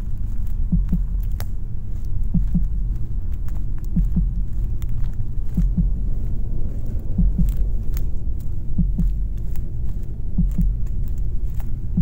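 Heartbeat sound effect: a low double thump about every one and a half seconds over a steady low rumbling drone, with scattered faint clicks.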